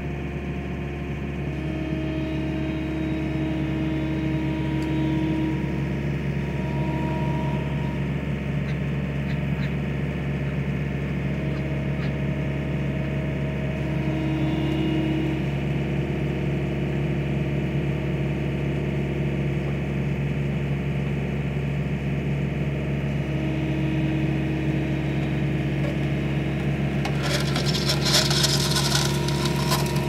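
Skid loader engine running steadily, with a whine that comes and goes as the hydraulic loader arms and pallet forks are worked. Near the end, a couple of seconds of clattering.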